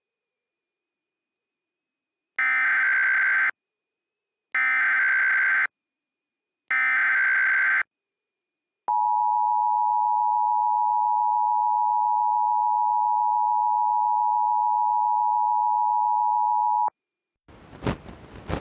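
Emergency Alert System broadcast signal: three identical bursts of SAME header data, each about a second long, then a steady two-tone EAS attention signal lasting about eight seconds, which cuts off sharply. A noisy sound begins near the end.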